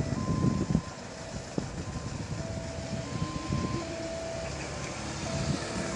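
Steady low rumble of an airliner's jet engines climbing away after pulling up from an approach. Short electronic beeps at two alternating pitches repeat over it.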